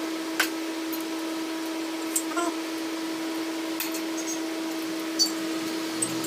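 Motorcycle clutch plates, metal and friction discs, clinking lightly against each other a handful of times as they are handled, over a steady hum.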